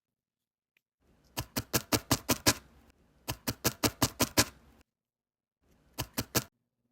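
Felting needle stabbing repeatedly into wool: two quick runs of about eight stabs, some seven a second, then three more near the end, with silence between the runs.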